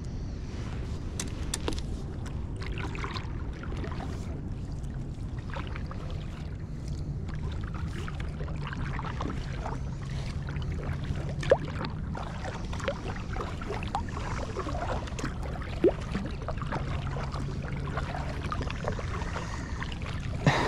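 Kayak paddle strokes: the blades dipping into and pulling through calm water, with drips and small splashes between strokes. A few sharp knocks stand out, about halfway, a few seconds later and again near the end.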